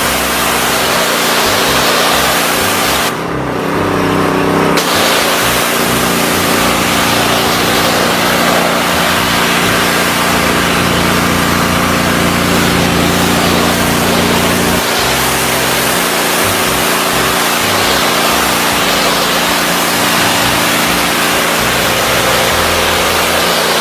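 Westinghouse WPX3400 gas pressure washer's 212cc four-stroke engine running steadily under a loud hiss. The hiss breaks off for about two seconds, about three seconds in, and the engine note shifts.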